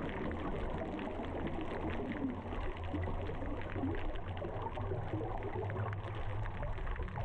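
Muffled underwater sound through a camera's waterproof housing: a steady crackle of bubbles and moving water, dull and lacking highs, over a low steady hum.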